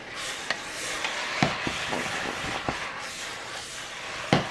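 Glass noodles and vegetables being stir-fried in a wok over high heat: steady sizzling, with a few sharp knocks of the wooden spatula against the pan.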